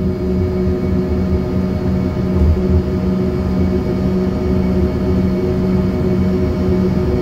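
Inside the cabin of an Embraer ERJ-145 taxiing, its rear-mounted Rolls-Royce AE 3007 turbofans run at low taxi power: a steady hum and whine over an uneven low rumble.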